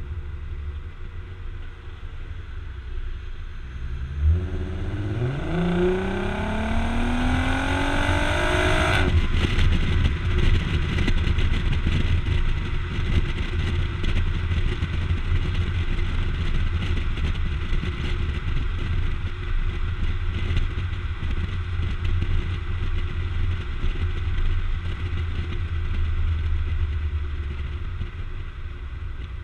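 A 3.6-litre VR6 engine through aftermarket Magnaflow mufflers, heard right at the exhaust tip. About four seconds in it accelerates hard, the exhaust note climbing steadily for about five seconds before cutting off abruptly. Then it settles into a low exhaust rumble under rushing wind and road noise.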